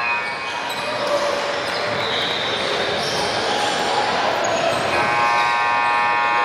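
Game noise in a large indoor hall: a ball bouncing, with voices in the background. Near the end a steady sound of many tones sets in and holds.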